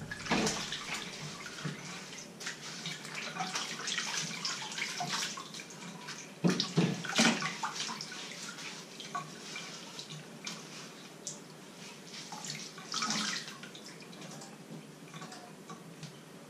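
Water splashing in a stainless steel kitchen sink as a wooden cutting board is scrubbed with a sponge and rinsed, with two sharp knocks about six and a half seconds in.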